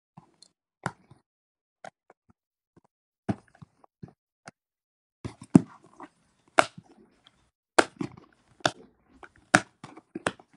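Silicone bubbles on a Simple Dimple fidget toy are pressed one at a time, each giving a short, sharp pop-click at an uneven pace. The pops are sparse at first and come louder and closer together from about halfway through.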